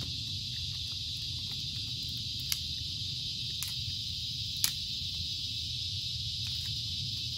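Steady high-pitched insect chorus over a low rumble, with three sharp cracks from the small stick fire being built in a metal fire ring, about two and a half, three and a half and four and a half seconds in; the last is the loudest.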